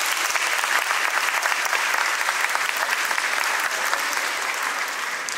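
Audience applauding, made of many separate hand claps, dying away near the end.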